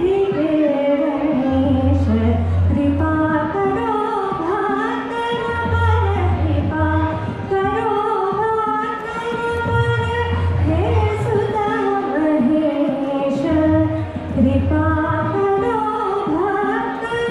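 A woman singing an Indian song into a microphone over instrumental accompaniment, amplified through stage speakers. A low bass note comes back about every four seconds.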